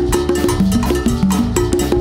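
Latin band playing an instrumental salsa groove, led by congas played with the hands and timbales played with sticks in a busy, steady rhythm.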